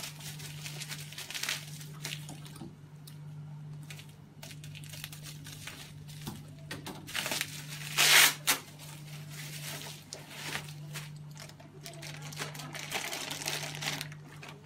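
Irregular crinkling, rustling and small knocks of plastic being handled, loudest about eight seconds in, over a steady low hum.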